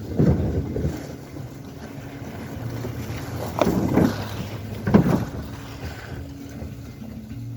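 Background music with three short bursts of wind rumbling on the microphone: one right at the start, one about three and a half seconds in and one about five seconds in.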